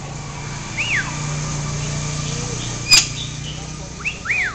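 Pet talking bird giving short whistles that rise and fall, once about a second in and again near the end. A sharp click comes about three seconds in, under a low steady hum.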